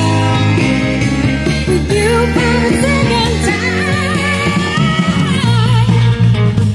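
A band's multitrack recording playing back from Pro Tools through an analog mixing console: a lead vocal singing with wide vibrato over bass, drums and instruments.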